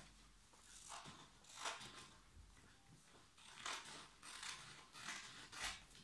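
Sheets of paper being handled and passed around: about six short, faint rustles.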